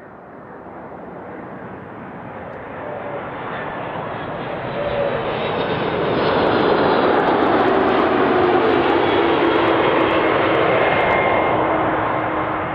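Twin-engine jet airliner on landing approach passing low overhead. Its engine noise swells for several seconds, stays loud, then begins to fade near the end.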